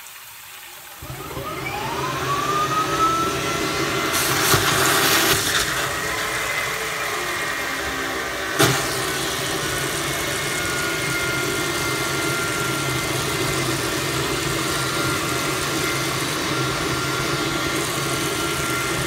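Hyla water-filter vacuum cleaner switched on: its motor spins up with a rising whine over about two seconds, then runs steadily while its hose sucks at a clogged sink drain. A louder hissing rush comes about four to six seconds in, and a sharp click near nine seconds.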